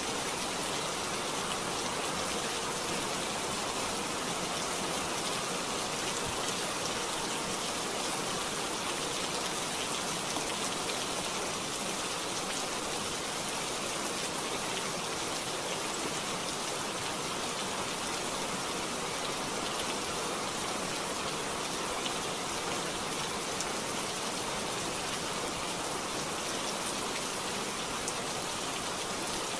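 Rain falling steadily: an even hiss of rainfall with faint, scattered drop ticks.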